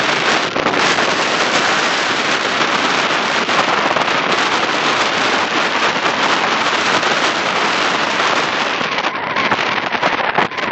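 Strong wind buffeting the microphone: a loud, continuous rushing noise that drowns out everything else.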